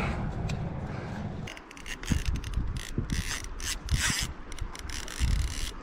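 Fly reel's click-and-pawl ratchet clicking in irregular runs, starting about a second and a half in, after a steady hiss.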